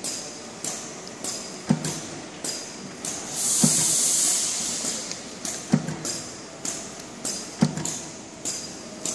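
A Savema pouch feeder and print unit running. It makes a steady run of clicks about twice a second as pouches are fed through, with a heavier thump about every two seconds. About three seconds in there is a hiss of air that lasts over a second.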